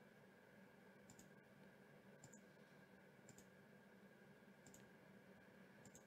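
Faint computer mouse clicks, five of them about a second apart, over a faint steady hum.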